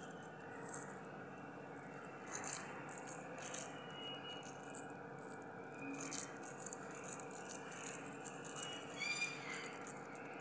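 Faint, irregular squishing and rustling of hands squeezing a moist grated-cabbage-and-carrot vegetable Manchurian mixture, with light scrapes against a stainless steel bowl.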